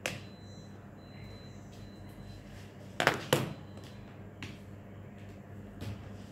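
Objects being handled: a sharp click at the start, then two loud sharp knocks in quick succession about three seconds in and a few fainter clicks, over a steady low hum.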